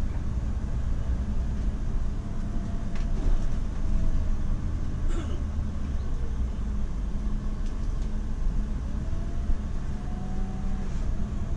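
Inside a moving coach: steady low engine and road rumble, with a faint whine that rises and falls in pitch as the bus changes speed.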